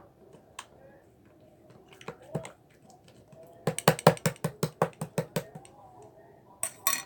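Slime being pressed and squeezed by hand, giving sharp clicking pops as air pockets burst: a few scattered clicks, then a quick run of about a dozen, several a second, from about halfway through, and a short cluster near the end.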